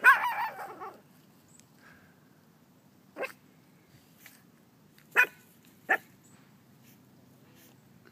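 An eight-week-old Bullnese puppy barking: one high-pitched yappy bark lasting about a second at the start, then three short, sharp yips about three, five and six seconds in.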